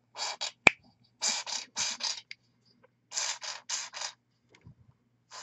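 A small dropper bottle of Shield Brown acrylic paint being shaken by hand, in short runs of two to four shakes at about four a second with pauses between. There is one sharp click about two-thirds of a second in. The bottle is nearly empty.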